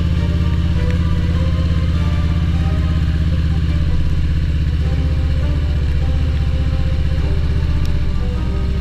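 Harley-Davidson Road Glide's V-twin engine running steadily on the move, with wind rush over the microphone.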